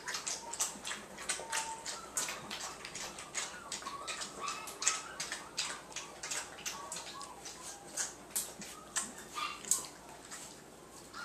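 A litter of five-week-old puppies scuffling together, with quick, irregular clicks all the way through and faint, short, high whimpers now and then.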